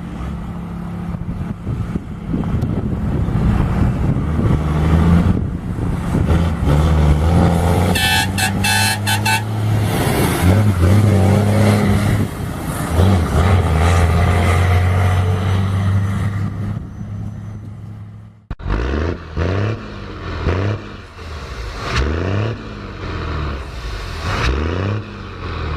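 Diesel truck engine under engine braking: a loud, low, steady engine note whose pitch drops and jumps in steps. After a sudden break about two-thirds of the way in, the engine sound swells up and down in pitch over and over.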